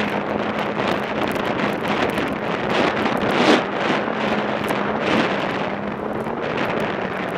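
Snowmobile riding at speed, its engine giving a steady drone under heavy wind buffeting on the microphone, with a louder gust about three and a half seconds in.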